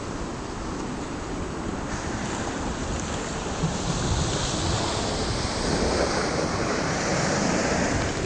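River drift ice floes grinding and rubbing against each other, heard as a steady rushing hiss, with wind buffeting the microphone. The sound grows slowly louder.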